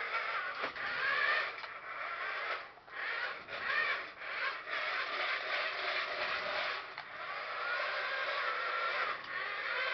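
The small electric motor and gearbox of a 1980s corded six-wheel toy RC truck whirring and grinding as it drives across a wooden floor, running in spurts with a couple of brief pauses.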